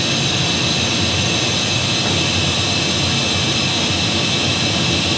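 Steady machine-shop noise: an even, loud hiss with a faint hum beneath it, unchanging throughout.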